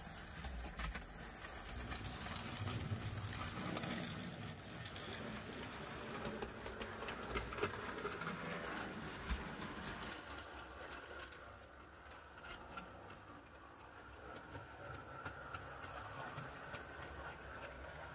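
Model railway train running along the track, its coach wheels rattling and clicking over the rail joints.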